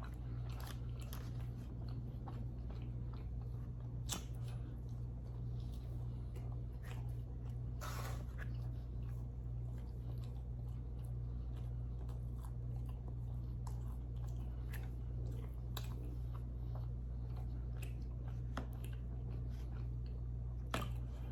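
A person chewing and biting pizza close to the microphone: irregular soft wet clicks and crunches, a few sharper ones now and then. A steady low hum runs underneath.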